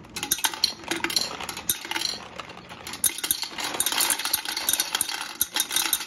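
Small gumballs poured from a carton into a glass gumball-machine globe, clattering against the glass and the plastic base in a quick, irregular stream of clicks and rattles.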